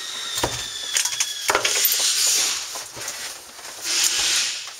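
Clicks and knocks with two brief bursts of scraping from the air-conditioner unit and its housing being worked loose by hand. A thin high steady whine stops about a second and a half in.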